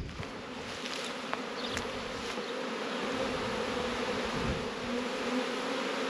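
Many honeybees buzzing together in a steady, even hum, from a colony that the beekeeper thinks is probably gearing up to swarm.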